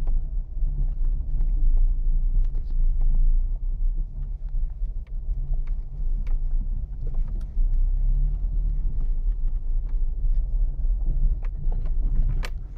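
Renault Logan driving slowly over a rutted dirt track, heard from inside the cabin: a steady low engine and road rumble, with scattered short knocks and clicks.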